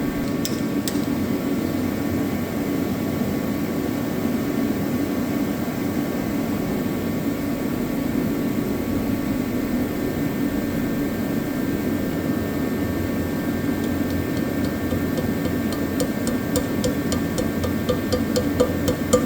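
Kerosene torpedo heater running steadily, an even blowing hum.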